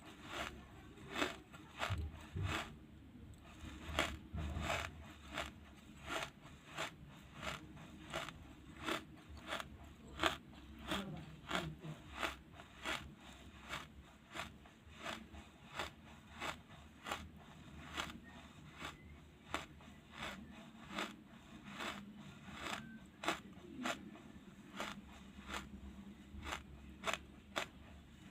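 Wood charcoal being chewed, crisp crunches about twice a second.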